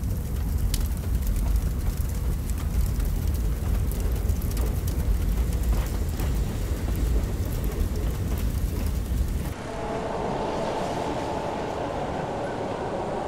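Heavy, low vehicle or train rumble with crackling noise, which changes abruptly about nine and a half seconds in to a steadier, higher hum with faint held tones.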